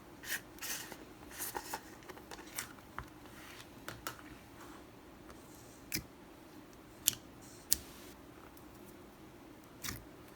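Thick, stretchy cloud slime being handled by hand, giving scattered sticky clicks, pops and short crackles, a few of them sharper than the rest.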